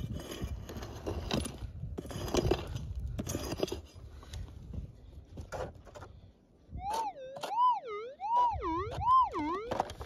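Gold prospecting metal detector's target tone: a warbling signal that rises and falls about four times near the end as the coil is swept over the dig hole. Before it, scraping and scratching of a pick digging into stony soil.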